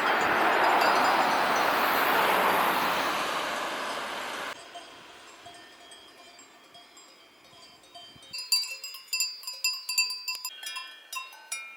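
A loud, steady rushing noise that cuts off abruptly a little under halfway through. After a quieter stretch, cowbells start clanking irregularly at several different pitches.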